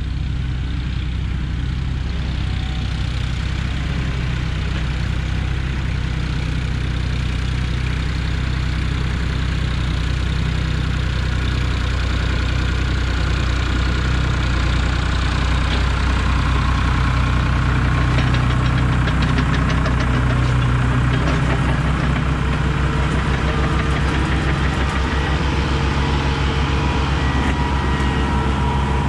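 Diesel tractor engines running steadily as two tractors work the dirt. A Farmtrac 60 with a front blade passes close about halfway through, its engine louder and joined by a fast clatter, and a Kubota M6060 with a loaded front-end loader rolls past near the end.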